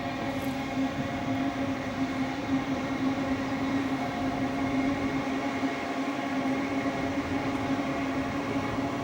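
Queensland Rail SMU electric multiple-unit train running, with a steady electric hum that holds one pitch.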